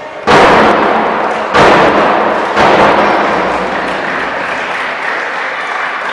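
Basketball crowd shouting and cheering in a sports hall, surging abruptly three times in the first few seconds, then holding as a loud, slowly easing din.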